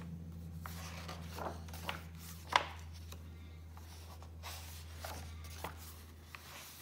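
Pages of a picture book being turned and smoothed flat by hand: soft paper rustles and a few light taps, the loudest about two and a half seconds in. A faint low hum runs underneath.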